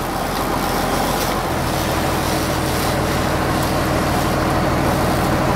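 A fishing boat's engine running steadily under way, with wind and water noise; its note shifts lower about a second and a half in.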